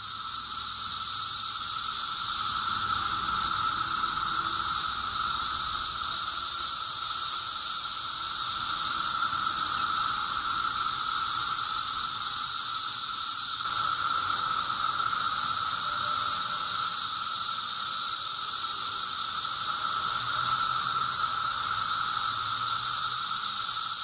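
A dense chorus of 17-year periodical cicadas singing in the trees: a steady high hiss with a lower droning tone beneath it, holding unbroken.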